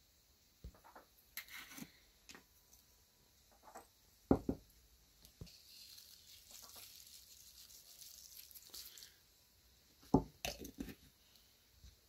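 Salt sprinkled from a small glass jar over a bowl of salad, a soft high hiss lasting a few seconds, between short knocks and clinks of glass jars and cups handled on the table; the loudest knocks come about four seconds in and again about ten seconds in.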